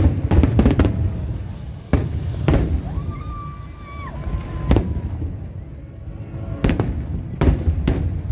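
Aerial firework shells bursting: a quick cluster of bangs in the first second, then single bangs every couple of seconds and two close together near the end, over a constant low rumble.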